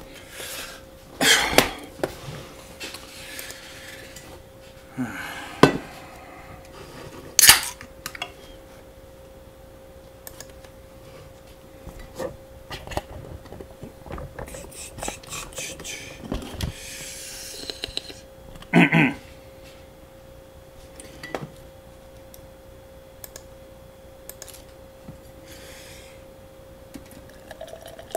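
Drinks can, cup-noodle cup and chopsticks handled and set down on a desk: scattered knocks, clicks and clatters over a faint steady hum. Near the end, beer starts to pour from the can into a steel tumbler.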